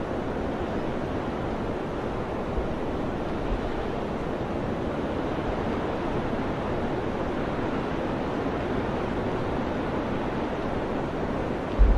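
Steady mountain wind blowing, a rushing hiss, with a few brief low thumps of wind on the microphone, the loudest near the end.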